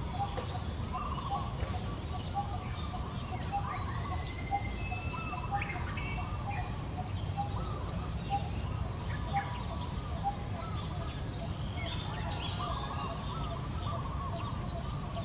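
Wild birds chirping and twittering in quick high notes, with a lower short note repeated almost twice a second, over a steady low background rumble.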